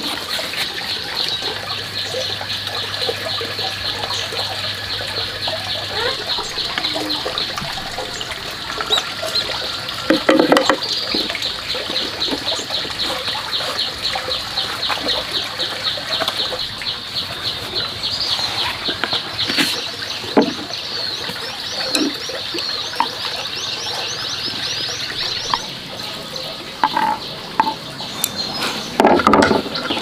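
Banana leaves crinkling and rustling now and then as hands fold them, the loudest bursts about a third of the way in and near the end. Behind them runs a steady, rapid, high-pitched chirring, with a run of rising chirps in the middle.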